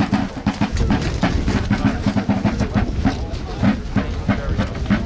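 A column of soldiers marching off: many footfalls making a dense, uneven run of clicks and thuds.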